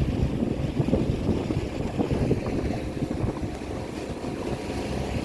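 Boston Whaler motorboat under way, its engine a low rumble, with wind buffeting the microphone in uneven gusts.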